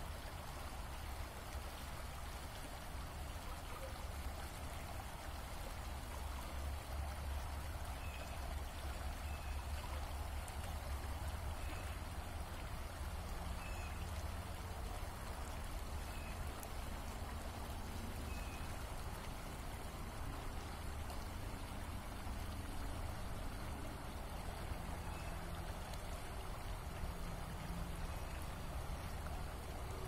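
Small stream flowing and rippling steadily over a shallow bed, with a steady low rumble underneath. From about a quarter of the way in, a faint short bird note repeats every second or so.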